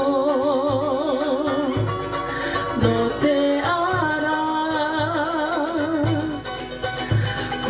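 Cook Islands song: a woman's voice singing long held notes with vibrato over strummed ukuleles and a steady low beat about twice a second.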